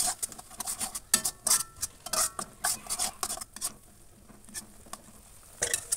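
Metal spatula scraping and stirring ground chili spice paste as it fries in oil in a metal wok, with a light sizzle underneath. It makes a quick run of scrapes, pauses about four seconds in, and starts again near the end.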